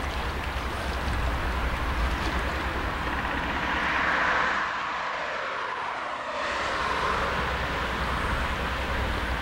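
Freight train running past in the distance: a steady low rumble of diesel locomotives and rolling cars, with a swell of hissing noise about four seconds in and the rumble thinning briefly just after.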